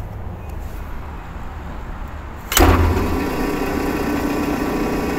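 Electric motor of a belt-driven exhaust fan switched on: a click about two and a half seconds in as it starts, then it runs with a steady hum of several tones.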